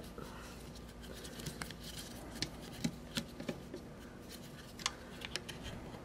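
Faint, scattered small clicks and scratches of fingers working a screw and small metal parts loose on a coffee grinder's burr-adjustment ring; the grinder is not running.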